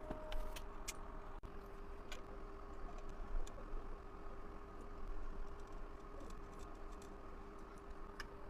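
Quiet repair bench: a faint steady hum with scattered light clicks and taps of small tools being handled.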